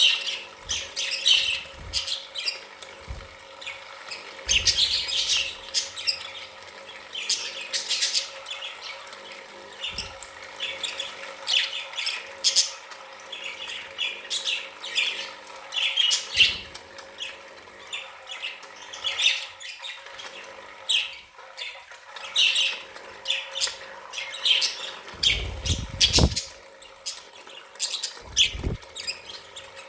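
A group of budgerigars chattering: a constant run of short squawks and chirps, over a faint steady hum, with a low thump about a second long near the end.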